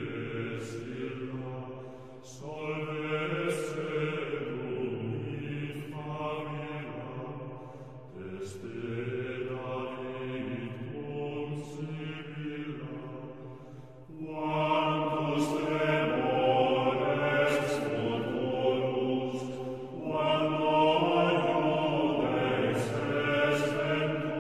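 Slow chanted singing, held tones in long phrases of about six seconds each, growing louder about fourteen seconds in.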